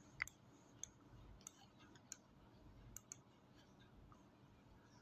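Near silence, broken by about six faint, sharp clicks in the first three seconds; the first, a quarter of a second in, is the loudest.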